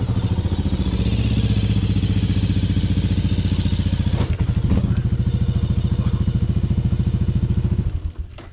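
Kawasaki KLR650's single-cylinder four-stroke engine running with an even, rapid thump at low speed. Near the end the engine cuts out suddenly as the bike is laid over onto its side.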